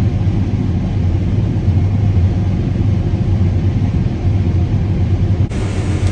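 Combine harvester running, a steady low drone heard from inside the cab, with an abrupt shift in tone near the end.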